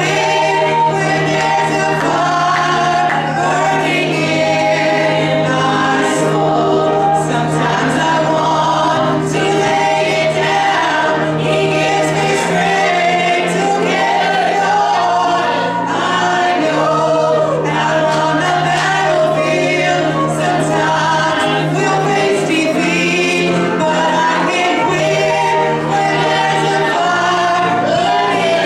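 A small group of church singers, women and men, singing a gospel song together, over a steady low bass note that shifts pitch now and then.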